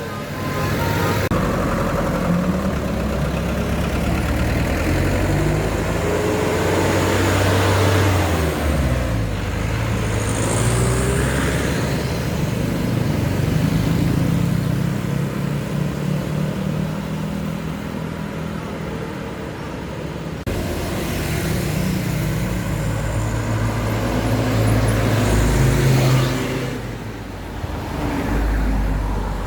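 Road traffic passing close by: the engines of buses and other vehicles running, with their engine note rising and falling several times as they accelerate and pass.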